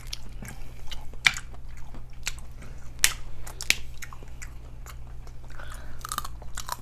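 Close-up eating sounds: chewing and biting into seafood-boil food, with many sharp smacking clicks, the loudest about a second in and twice around three to four seconds in. A steady low hum runs underneath.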